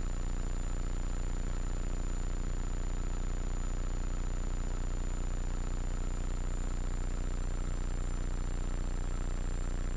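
Hummingbird helicopter's piston engine and rotor running steadily at flight power, heard inside the cockpit as it lifts into a hover, with a thin steady high whine over the low drone.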